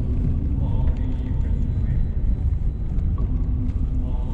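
Low, steady rumble of a Mercedes-Benz car on the move, heard from inside the cabin: engine and tyre noise.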